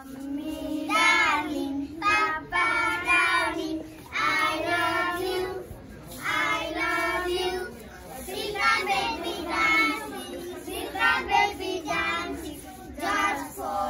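A group of children singing together in short phrases.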